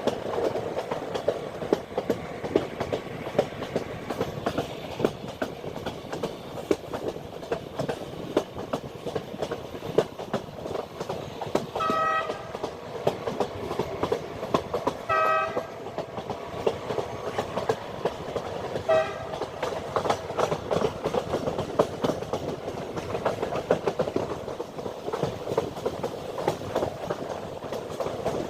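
Train running along the track with a steady clatter of wheels over the rails. Its horn sounds briefly three times midway through and again at the very end.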